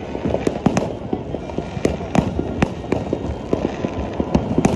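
New Year's fireworks and firecrackers going off: sharp bangs at irregular intervals, a few each second, over a constant rumble and crackle of more distant explosions.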